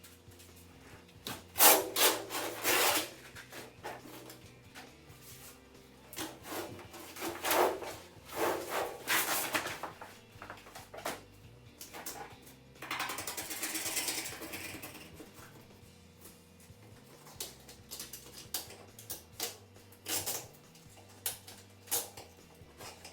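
Irregular scraping and rubbing strokes on the car's bodywork, in uneven clusters, with a longer rasping stretch a little past halfway and a few short ticks after.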